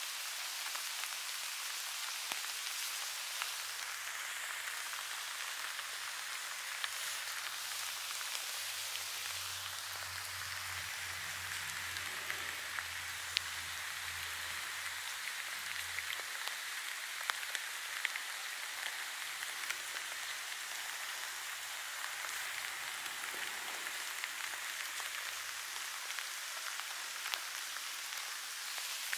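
Steady rain falling on grass and leaves: an even hiss with scattered sharp ticks of single drops.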